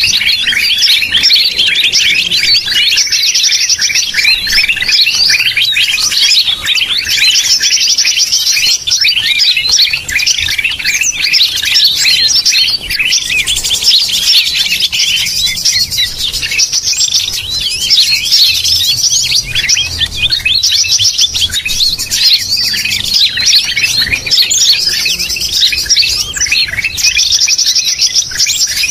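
Dense, unbroken chorus of many overlapping bird chirps and twitters, with a buzzy trill coming back every few seconds. It is a bird-trapping lure track (suara pikat) built on green leafbird (cucak ijo) calls.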